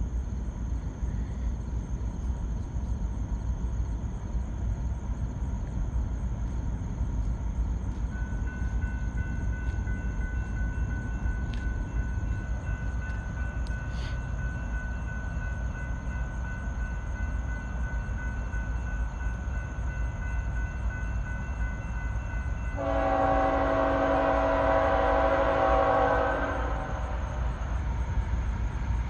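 Approaching diesel freight locomotive's horn sounding one long blast of about four seconds near the end, a chord of several notes, over a steady low rumble.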